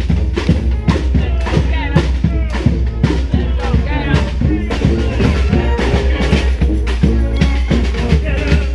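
Brass band playing a New Orleans–style brass band tune: horn lines over a steady beat of bass drum and snare, with a strong low bass line.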